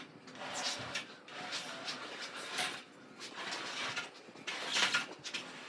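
Scattered scrapes and bumps of heavy gym equipment being shifted and handled, several short noisy bursts, the loudest a little before the end.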